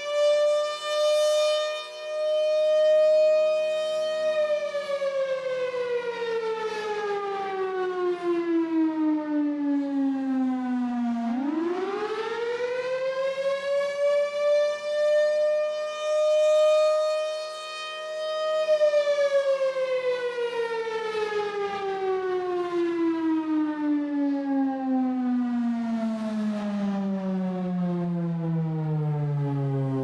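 1950s Federal Sign & Signal Thunderbolt 1000 rotating air raid siren sounding the attack signal. A high held wail falls slowly away, climbs quickly back to the high pitch about halfway through and holds, then falls again to a low pitch near the end. A steady low hum runs beneath it.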